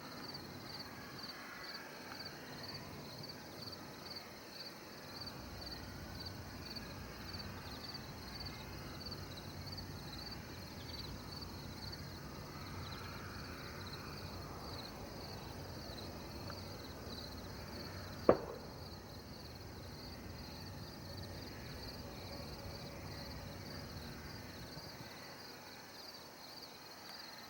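Crickets chirping steadily in a high-pitched, even rhythm of about two chirps a second, over a low, quiet background hum. A single sharp click about two-thirds of the way through.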